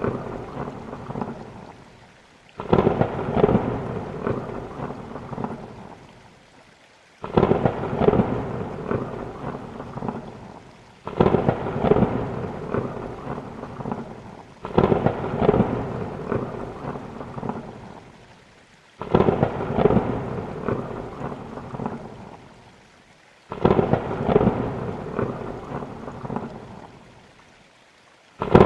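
Rain with thunder: a sudden loud thunderclap or rumble about every four seconds, each fading away before the next.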